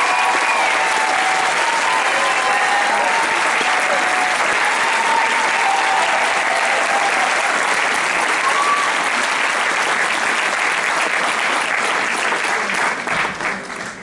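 Theatre audience applauding steadily, with a few voices calling out over the clapping, dying away into scattered claps near the end.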